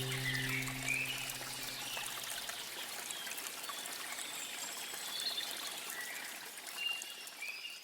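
Small stream trickling steadily, with short bird chirps now and then. The last held notes of background music die away in the first second or two, and everything fades out at the very end.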